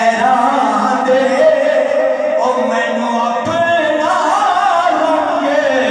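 A man's voice singing unaccompanied in a drawn-out melodic chant, amplified through a microphone, with long held notes that slide up and down.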